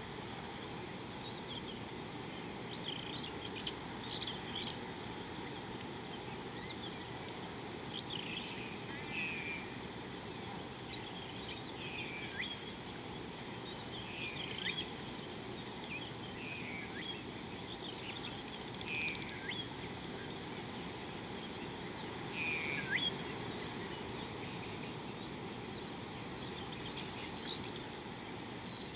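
Birds calling in short chirps and quick falling notes, scattered every second or two, over a steady low background hiss of outdoor ambience.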